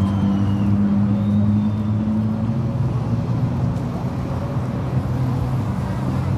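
Jet ski engine running with a steady low drone as the craft moves slowly over choppy river water.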